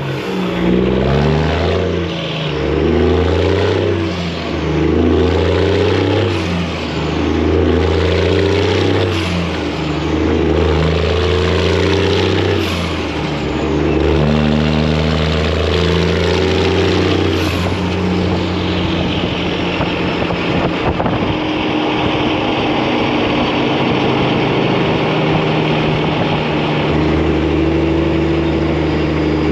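Detroit diesel engine in a semi-truck pulling hard through the gears, its note climbing and dropping with each shift about every two seconds, then holding a steady drone at cruise for the last third.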